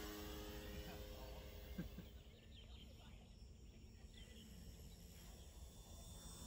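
The model plane's small electric motor hums faintly and fades out within the first second or two as the plane glides in to land. After that there is near silence, with only a faint outdoor hiss.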